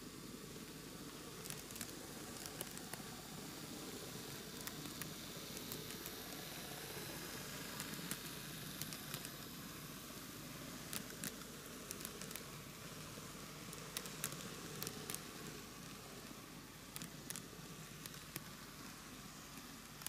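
N-gauge model diesel railcar set running past on TOMIX sectional track: a steady rolling whir with scattered sharp clicks of wheels over the rail joints, easing off near the end as the last car goes by.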